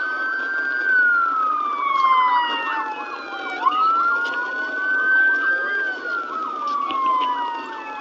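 Emergency vehicle siren wailing: each cycle rises quickly, holds, then slides slowly down, repeating about every five seconds, with other siren tones overlapping it.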